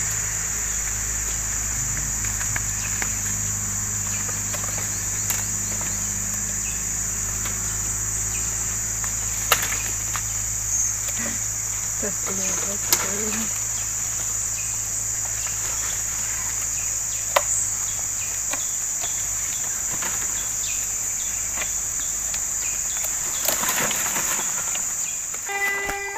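Steady high-pitched insect drone of a tropical forest, with a low steady hum beneath it and a few sharp clicks scattered through.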